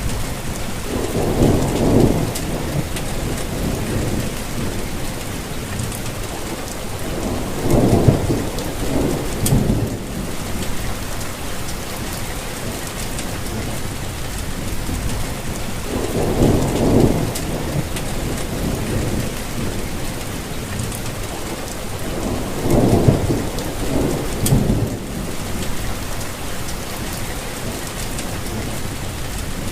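Steady rain falling, with a low rumble swelling up and fading four times, each lasting a second or two.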